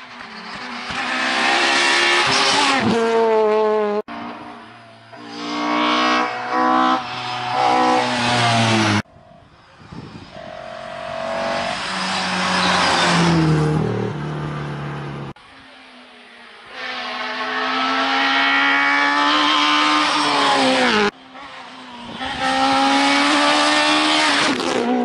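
Rally cars at full speed, one after another, engines revving hard with the pitch climbing and dropping at each gear change as they approach and pass. The sound breaks off abruptly several times as one car's clip cuts to the next.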